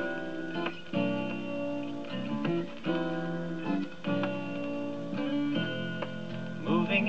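Music from a 12-inch vinyl record played on a Marconiphone record player: strummed guitar chords, a new chord about once a second, with a singing voice coming in near the end.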